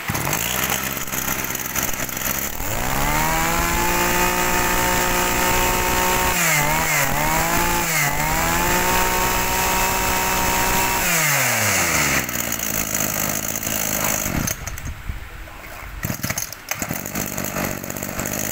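Robin NB411 brush cutter's small two-stroke engine running: it speeds up over about a second, holds a steady high note, dips in pitch twice briefly, then is switched off about eleven seconds in and runs down. A few handling clicks follow near the end.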